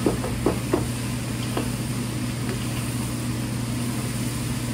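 Long-handled cooking utensils clacking and scraping against a large wok as chopped meat and vegetables are tossed: several sharp knocks in the first second and one more shortly after. Underneath is a steady low machine hum.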